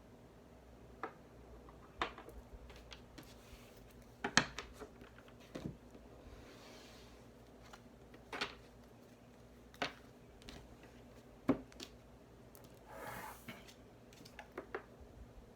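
Objects being handled and set down on a tabletop: scattered, irregular clicks and knocks, with two short rustles about seven and thirteen seconds in.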